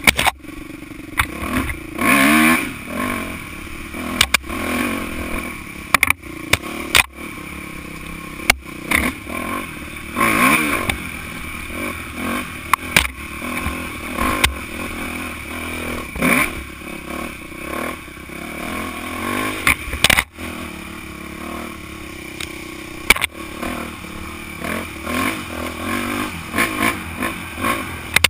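Dirt bike engine riding along, revving up and falling back again and again, with many sharp clatters and knocks on top. Brush and branches slap past the bike and the camera.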